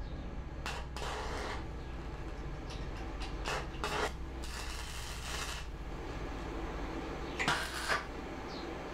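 Steel pipe and bottom disc of a home-made crucible being worked: several short scraping, rasping bursts and a few clicks of metal over a steady low hum.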